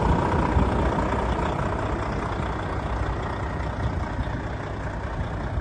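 Volvo FH13 tractor unit's 13-litre straight-six diesel idling steadily with a low rumble.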